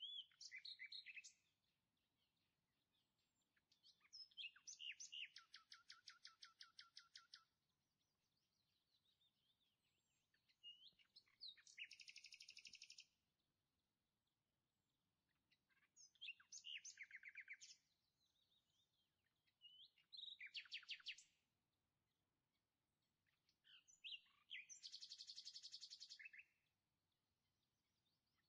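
A songbird singing faintly in repeated phrases. Each phrase is a few sharp chirps running into a fast trill, about two to three seconds long, coming roughly every four to six seconds.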